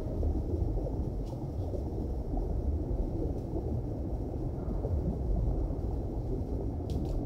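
A low, steady rumbling noise, with a faint tick about a second in and a couple more near the end.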